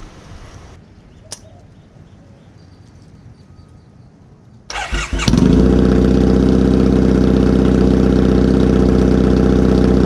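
Triumph Bonneville parallel-twin engine cranked on the starter about five seconds in. It catches at once and settles into a steady, loud idle through MGO cocktail shaker exhaust pipes with the baffles removed.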